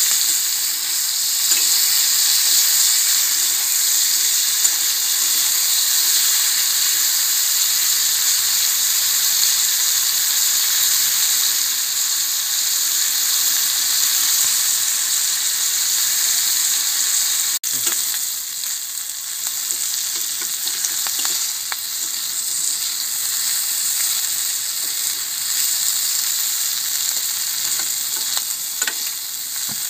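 Prawns sizzling as they fry in hot oil in a pan, a steady high hiss with a few light clicks from stirring. The sound drops out for an instant about 18 seconds in and then carries on slightly quieter.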